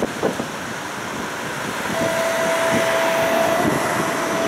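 Tram running with a steady rumble and a couple of knocks near the start. About two seconds in the noise grows louder and a single steady high tone sets in and holds.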